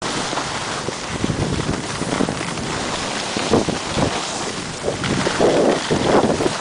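Wind buffeting the microphone of a camera carried by a skier going downhill fast: an uneven rushing roar in gusts, heavier from about five seconds in.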